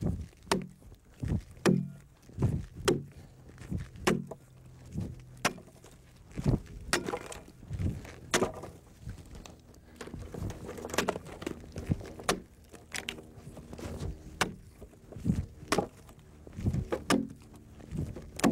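Broad axe chopping into the side of a log during rough hewing: a long run of sharp blows, at times about two a second, with a lighter spell of smaller strokes in the middle.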